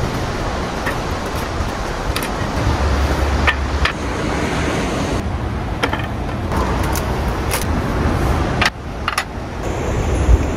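Steady rush of passing road traffic, with several short sharp clicks and knocks over it.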